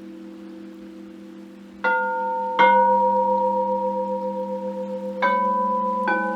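Crystal singing bowls struck four times, each strike adding a new clear tone over bowls already ringing, the overlapping tones sustaining and slowly wavering.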